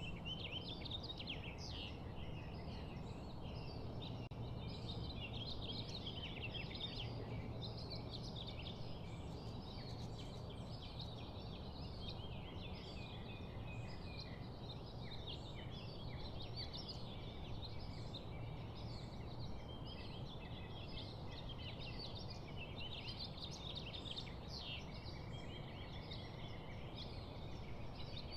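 Many small birds chirping and chattering at once in a dense, continuous flock chorus, over a low steady hum.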